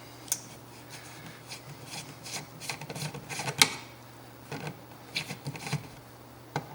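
Screwdriver work on a wall outlet: scattered small clicks and short scraping sounds as screws are backed out and the plastic and metal parts are handled.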